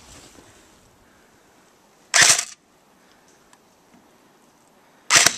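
Airsoft AK-74 replica rifle firing two short, loud bursts about three seconds apart.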